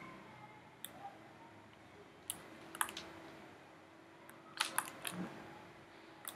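Scattered clicks and taps of a computer mouse and keyboard, a few at a time, over a faint steady hum.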